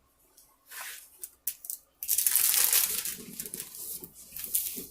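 Plastic film on a diamond-painting canvas crinkling and rustling as the canvas is handled: a few short rustles and clicks, then a louder stretch of crinkling about two seconds in that fades away.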